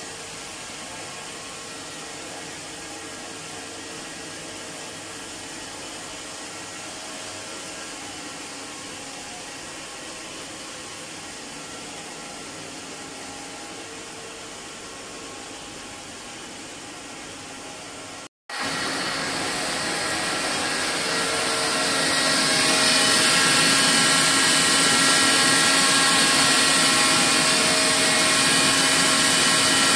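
30-inch, 28-gauge, 84-feeder sandwich double jersey circular knitting machine running at speed: a steady mechanical whirring with many thin high tones over it. About eighteen seconds in it cuts out for an instant and comes back louder and brighter, close up to the needle cylinder and yarn feeders.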